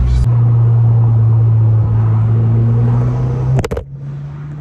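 Mk1 Audi TT 225's 1.8-litre turbocharged four-cylinder engine running at a steady cruise with road noise, heard inside the cabin. About three and a half seconds in there is a brief clatter, after which the sound drops to a quieter steady hum.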